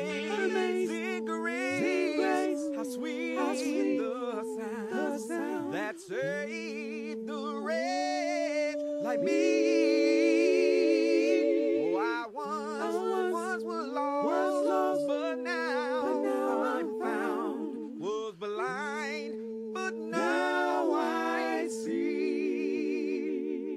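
Unaccompanied voices singing long held notes in harmony, with no instruments.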